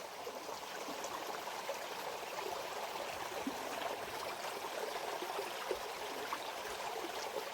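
Small brook water running and trickling over rocks, a steady rushing babble.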